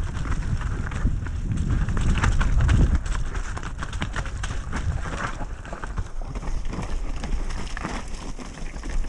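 Mountain bike riding down a rough, slippery trail: a steady clatter of knocks and rattles from the bike over roots and rocks, with wind rumbling on the microphone, heaviest in the first three seconds.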